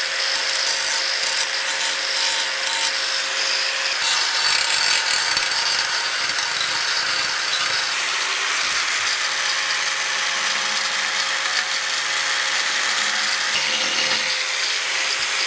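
Bosch angle grinder running steadily with a grinding disc against a rusty cast iron gutter, grinding off rust: a harsh, continuous grinding noise over the steady whine of the motor.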